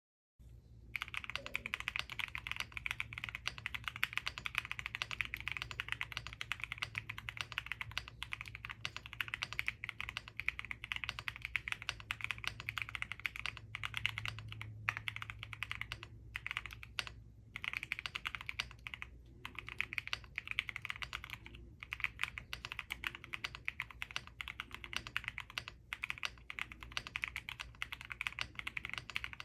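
Continuous typing on a Haven TKL mechanical keyboard with Endless Summer switches, an FR4 plate, no PE foam and PBT keycaps: a dense run of keystroke clacks with short pauses. It starts just under a second in.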